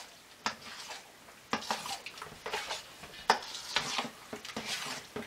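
A spoon stirring a thick ricotta and tomato-sauce mixture in a stainless steel mixing bowl, knocking and scraping against the metal sides in irregular clinks.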